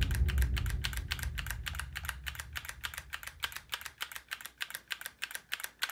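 Rapid, even clicking, about eight clicks a second, fading slightly in loudness.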